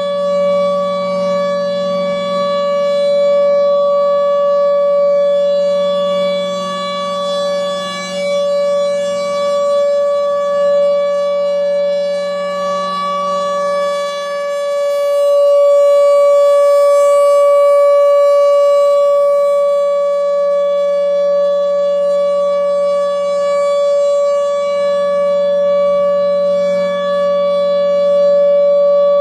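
Federal Signal Thunderbolt 1000 outdoor warning siren sounding the alert signal: one steady, unwavering tone. Its loudness swells and fades about every 11 to 12 seconds as the rotating head sweeps toward and away from the listener.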